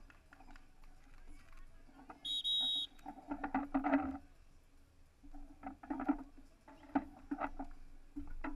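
Referee's whistle: one steady, shrill blast lasting under a second, about two seconds in. Scattered short scuffs and indistinct voices come before and after it.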